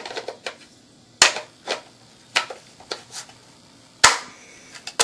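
Airsoft gun parts being handled, hard plastic and metal pieces clicking and knocking together in a string of sharp taps about half a second to a second apart, the loudest about four seconds in.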